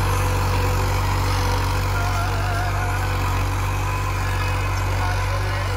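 Farm tractor's diesel engine running steadily at an even pace while it pulls a tillage implement through the soil, a constant low hum.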